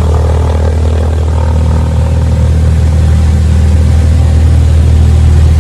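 Cessna 172's piston engine and propeller running with a steady, loud drone, heard inside the cabin.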